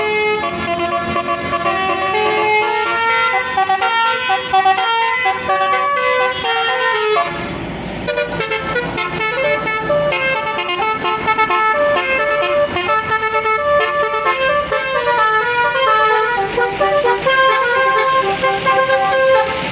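Bus telolet melody horn playing a tune of quick stepped notes on its multi-tone air horns. About seven seconds in, a low rumble joins underneath.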